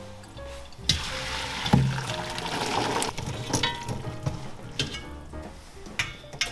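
Boiling water and blanched pork ribs tipped from a stainless stock pot into a metal mesh strainer: a couple of knocks, then about two seconds of rushing, splashing water, followed by light clatter, over soft background music.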